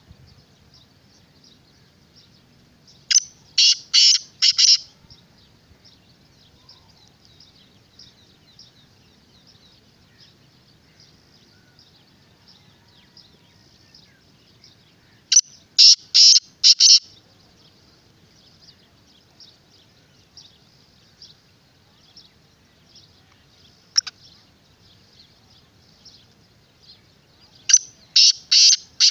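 Black francolin calling three times, about twelve seconds apart, each call a loud phrase of four or five short harsh notes. A faint high twittering runs underneath, with one single sharp note between the second and third calls.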